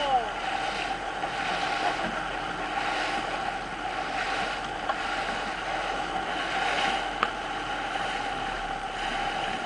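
Steady drone of a motorboat running alongside, with water rushing past and wind on the microphone.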